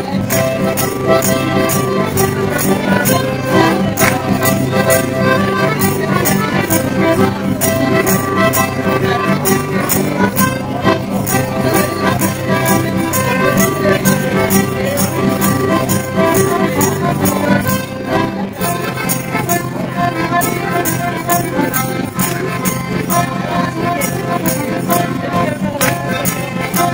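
Traditional folk dance music with sustained melody lines over a steady percussive beat.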